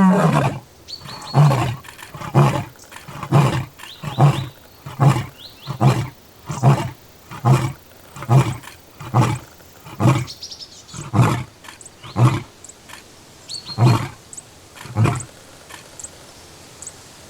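Lion roaring: the end of one long deep roar, then a series of about fifteen short grunts, roughly one a second, spacing out slightly until they stop near the end. This grunting series is the closing part of a lion's full roaring bout.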